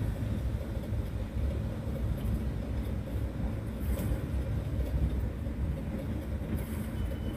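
Motor yacht's inboard engine running at low speed, a steady low rumble as the boat creeps through a harbour.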